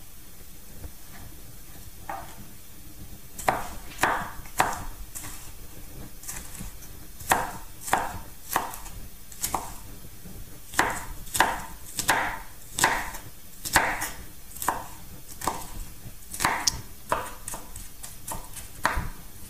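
Chef's knife dicing onion on a wooden chopping board: separate knocks of the blade on the board, sparse for the first few seconds, then about one or two a second.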